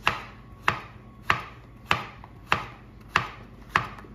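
Chef's knife chopping zucchini into chunks on a plastic cutting board: seven even knocks of the blade hitting the board, a little over half a second apart.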